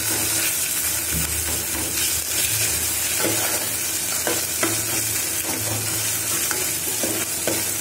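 Chopped onions and ginger-garlic paste sizzling in hot oil in an aluminium pressure cooker, stirred with a steel ladle that scrapes and taps against the pot now and then. They are being sautéed until the raw smell of the ginger-garlic paste cooks off.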